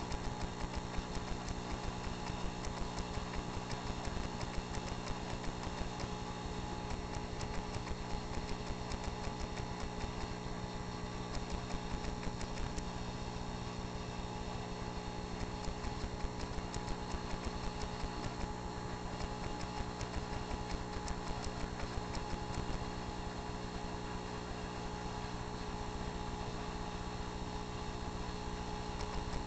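Saltwater aquarium's pump running: a steady mechanical hum with a fast, fine rattle, heard close to the tank.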